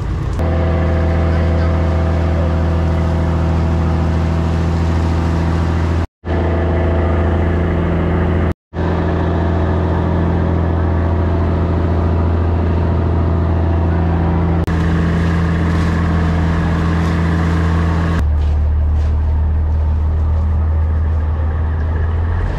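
Motorboat engine running at a steady drone, cut off abruptly twice for a moment.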